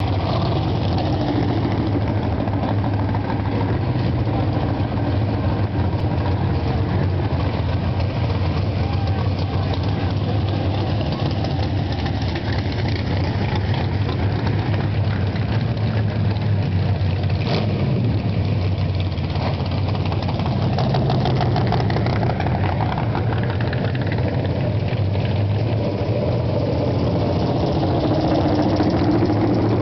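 Engines of vintage gasser drag cars idling as the cars roll slowly past one after another, a steady low engine note with no breaks.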